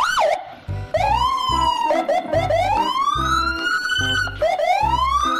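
Siren-like wail rising in pitch three times, over music with a heavy low beat.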